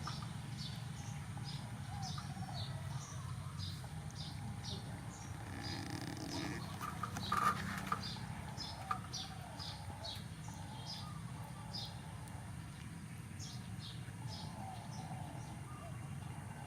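Small birds chirping in short, repeated calls over a steady low rumble, with a brief clatter about seven seconds in.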